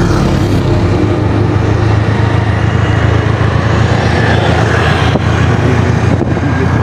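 Scooter riding along a road: a steady low engine hum under a loud, even rushing noise.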